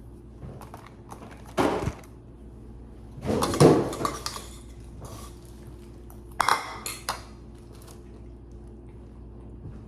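Dishes and kitchenware clattering as they are handled, in three short bursts of knocking and clinking about one and a half, three and a half and six and a half seconds in, over a faint steady hum.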